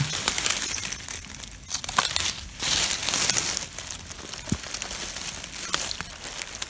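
Close-up rustling and crackling of dry pine needles and fallen leaves as hands dig through the forest litter to work a mushroom loose, with many small ticks and a louder stretch a little under three seconds in.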